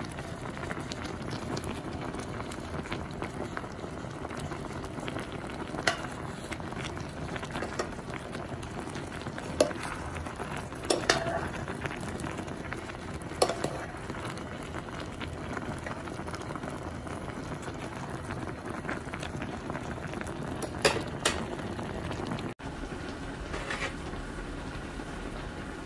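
Soup boiling in an electric hot pot, a steady bubbling hiss, with a few sharp clinks of a metal ladle against the pot.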